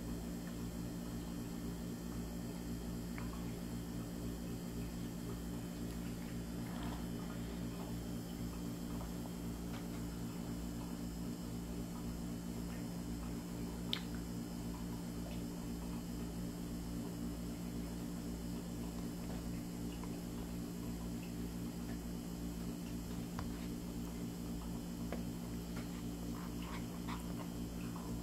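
A steady low electrical hum from an unseen appliance runs throughout. Over it come a few faint small clicks and mouth sounds, with one sharp click about halfway through.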